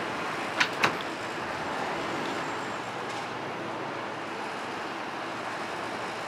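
Steady running noise of a New York City subway F train, with two sharp clicks a quarter second apart about half a second in.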